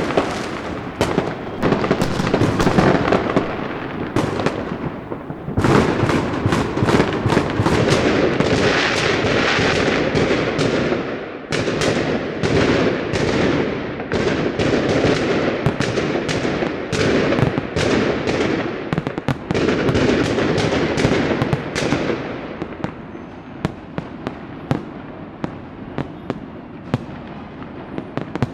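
Fireworks and firecrackers going off in rapid, dense volleys of bangs and crackles. They thin to scattered, quieter pops over the last several seconds.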